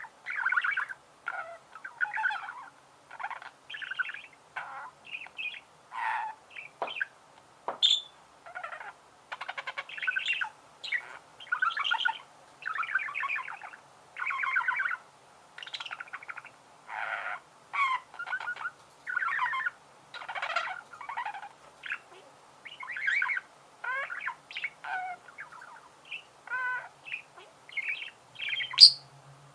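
Budgerigars warbling and chirping in a continuous rapid chatter of short, varied notes, with one sharp, loud squawk near the end.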